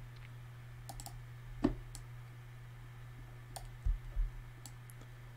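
Scattered clicks of a computer mouse and keyboard keys, with two dull low thumps about four seconds in, over a steady low hum.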